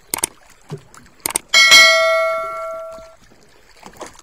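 Subscribe-button sound effect: a few quick mouse clicks, then a bell chime about a second and a half in that rings and fades away over about a second and a half.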